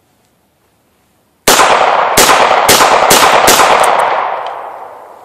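Taurus .357 Magnum revolver loaded with .38 Special, fired rapidly: five loud shots about half a second apart, starting about a second and a half in, with the echo dying away over the next second and a half.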